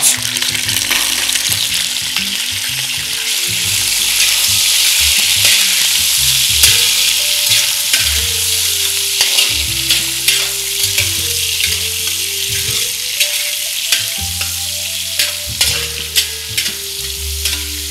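Raw tiger prawns sizzling in hot oil in a copper pan, the sizzle starting sharply as they go in and running on while they are stirred with a slotted metal spatula, with light scrapes and taps of the spatula on the pan.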